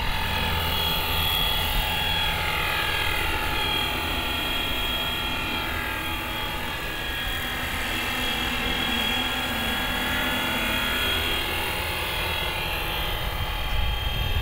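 Fly Wing Bell 206 V3 RC helicopter in flight, its brushless electric motor and rotor making a steady high whine with several tones that slide slowly up and down in pitch. A louder low rumble comes in near the end.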